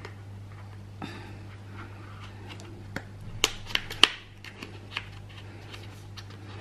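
Packaging of a boxed eyeshadow palette being handled and opened: scattered light clicks and short rustles, busiest about three to four seconds in.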